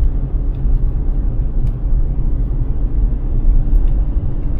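Steady low rumble of a car on the move, engine and road noise as heard from inside the cabin, with a few faint ticks.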